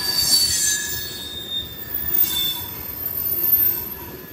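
Freight train of tank cars rolling past on curving track, the wheel flanges squealing in several high tones that shift in pitch over the rumble of the wheels, growing quieter near the end.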